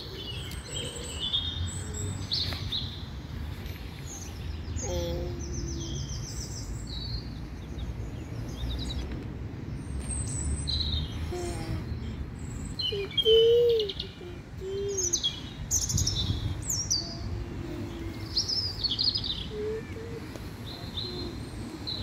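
Small birds chirping and twittering in short, high-pitched calls throughout, over a low steady rumble. About halfway through comes a brief, louder, lower-pitched call.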